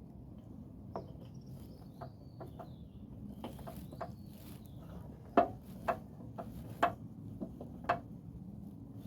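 Irregular light clicks and knocks of small parts and hand tools being handled, the loudest few in the second half, with faint high chirping in the background during the first half.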